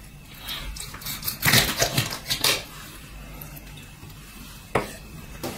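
Kitchen knife cutting the head off a whole trout on a wooden cutting board: a few short crunching strokes through the neck and backbone in the first half, then a single sharp knock near the end.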